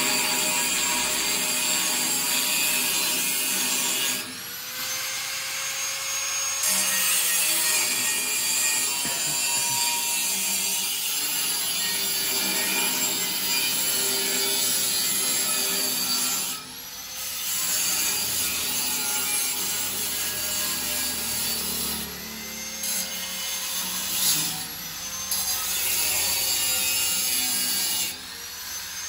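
Electric angle grinder cutting and grinding steel pipe, a harsh continuous grinding hiss. It breaks off four times for a second or two, leaving the whine of the disc spinning freely.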